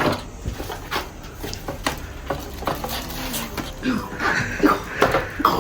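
A sleepy baby fussing, with short whimpering cries from about four seconds in, over scattered clicks and knocks of handling.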